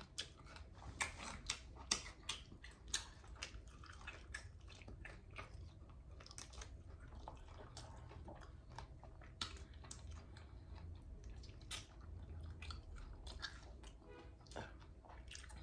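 A person chewing homemade fried chicken wings close to the microphone: faint, irregular wet clicks and smacks of the mouth, a few of them louder.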